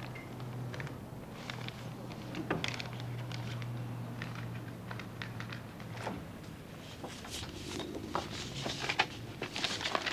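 Faint scattered clicks and rustles over a low steady hum; the hum stops about halfway through, and the clicks come thicker near the end.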